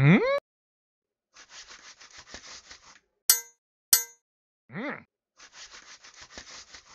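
Cartoon sound effects for an animated Viking: a rising whoop, a stretch of rapid crackly steps, two sharp ringing metal clangs about half a second apart, a short rising-and-falling vocal call, then more rapid steps.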